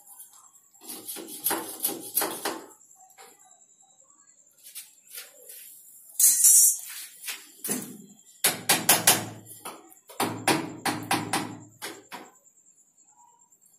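Pipe fittings being handled against the wall pipework: clattering and tapping in three bursts of rapid clicks, with a short scraping hiss about six seconds in.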